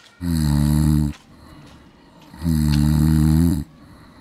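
Loud snoring from a man dozing in a chair: two long, low snores, each about a second long and about two seconds apart.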